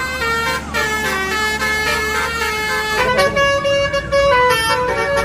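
Multi-tone 'telolet' bus horn playing a melody of stepped notes, with a second phrase starting about three seconds in. A low steady rumble lies under the first part.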